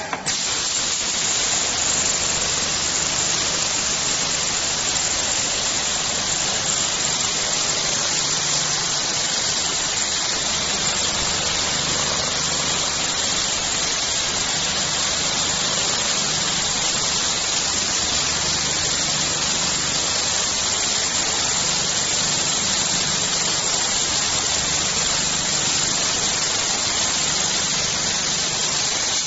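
A steady, loud hiss like static or rushing air, even throughout, with a faint low hum beneath it.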